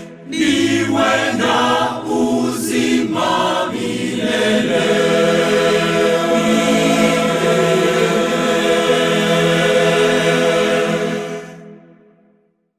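Church choir singing a Swahili gospel song in harmony, settling on a long held chord that fades away near the end.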